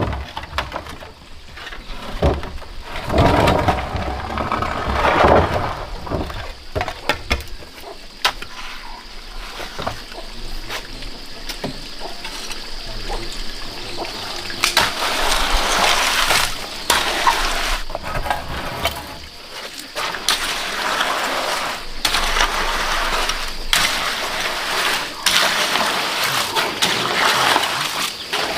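Water splashing and sloshing in uneven bursts, busier in the second half.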